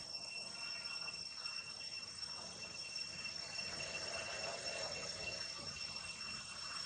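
Insects droning steadily in the background: a continuous high-pitched note with a fainter, higher one above it.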